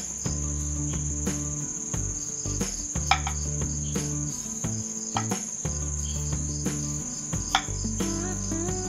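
Knife cutting wild breadfruit on a wooden chopping board, with scattered sharp knocks at irregular intervals. A steady chorus of crickets runs underneath.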